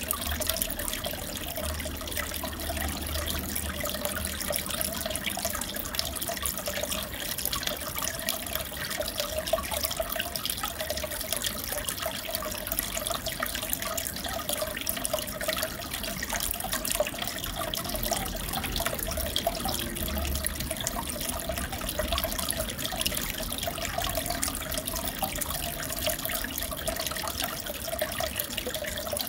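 Steady trickling and bubbling of aquarium water circulating, with fine splashing throughout.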